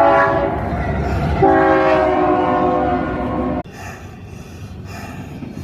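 Train horn blasting a chord of steady tones, right up close. About a second and a half in it jumps louder to a new chord, and it cuts off suddenly about three and a half seconds in, over the low rumble of the train.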